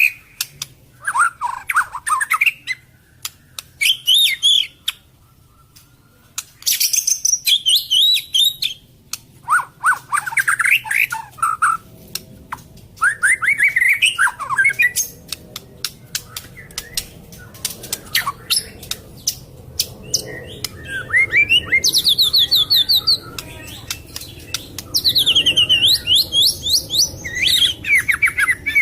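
White-rumped shama (long-tailed murai batu) singing in loud phrases of rapid, gliding whistled and trilled notes, each phrase a second or two long with short pauses between. Sharp clicks are scattered between the phrases.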